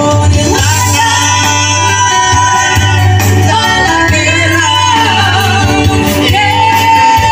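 A woman and a man singing a song together through microphones over amplified live music with a steady bass line.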